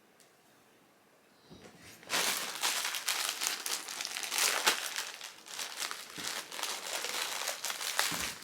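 A plastic packaging bag crinkling and rustling as a packaged item is handled and pulled out, starting about two seconds in after a quiet moment and running on as busy crackling.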